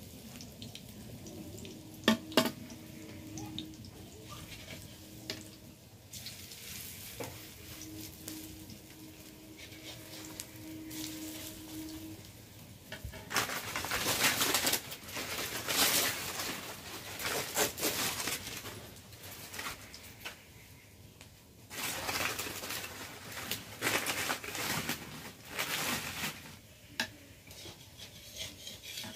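Prawn-head fritters frying in oil in an iron kadai, with a metal spatula clinking and scraping against the pan. There are two sharp clinks about two seconds in, then long loud stretches of sizzling and scraping in the second half as the fritters are turned.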